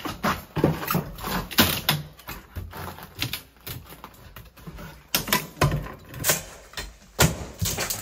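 Steel pry bar knocking and scraping against broken concrete and rubble, irregular knocks about once or twice a second with gritty scrapes between.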